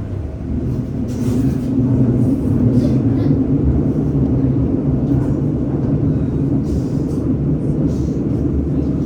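Tyne and Wear Metro train running between stations, heard from inside the carriage: a steady rumble with a low, even hum.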